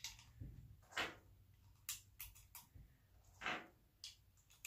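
Brass-cased 9mm cartridges being pressed one by one into a pistol magazine by hand: a handful of faint, separate clicks and short scrapes as each round slides under the magazine lips.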